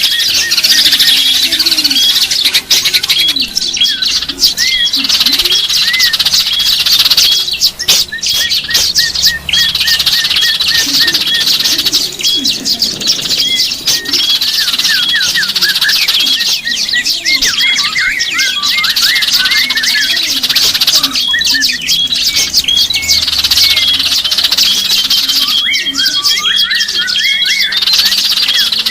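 Many small songbirds chirping and calling at once, a dense, continuous chatter of short high notes and quick trills.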